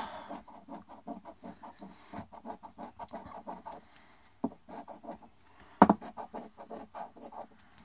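Large coin scraping the coating off a paper scratch-off lottery ticket in quick back-and-forth strokes, about five a second. The strokes pause briefly about four seconds in, and a sharp click comes near six seconds.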